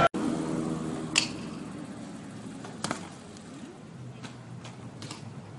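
BMX bike on concrete: a few sharp clicks and knocks, the loudest about a second in, over a quiet background hiss.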